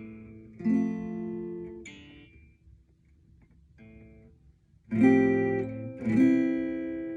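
Acoustic guitar, chords strummed one at a time a second or so apart, each left to ring and fade: the closing chords of a song. The loudest two come near the end.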